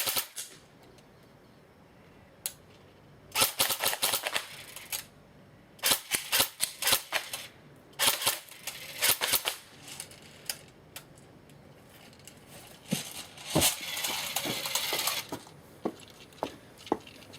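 Cricket CM050A airsoft AK electric gun firing several short bursts of rapid clicking shots, separated by pauses and a few single clicks.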